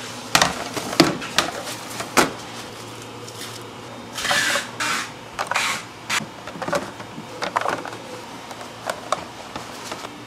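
Metal pullman loaf tins knocking and clattering as they are handled and set down, with a few short hissing rushes in the middle.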